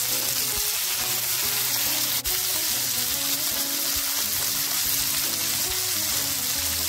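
Basa fish fillets frying in hot coconut oil in a frying pan, a steady sizzle. The fillets are cooked through on their second side.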